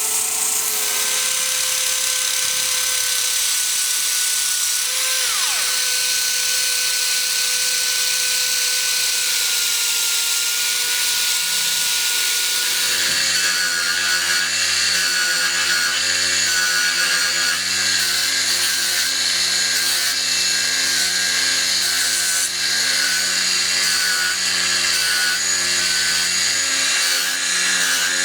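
A small electric power tool running steadily with a whine. About thirteen seconds in its note changes and a lower hum joins.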